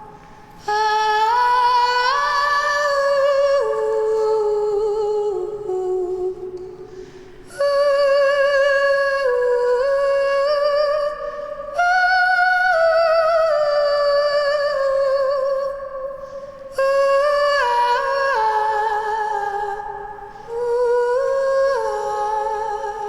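A woman's voice humming a slow wordless melody in long held notes with vibrato, in about five phrases broken by short breaths, with the reverberation of a large stone room.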